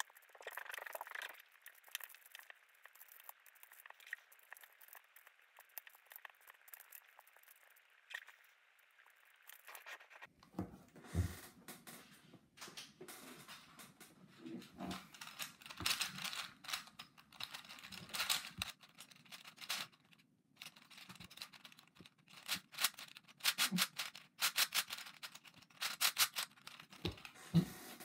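A plastic twisty-puzzle cube being turned by hand, its layers clicking and clacking in irregular runs. The clicks are sparse and faint at first, then come dense and louder from about a third of the way in.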